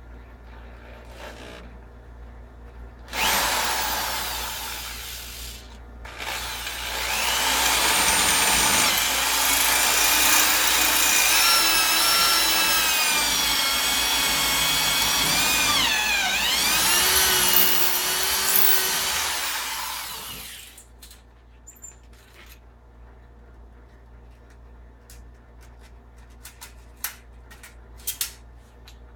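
Electric drill boring into a steel factory ball joint rivet: a short burst about three seconds in, then a long run of about fourteen seconds with a high-pitched squeal from the bit cutting the rivet, the pitch dipping around sixteen seconds as the drill slows under load, before it stops. Light clicks and taps follow.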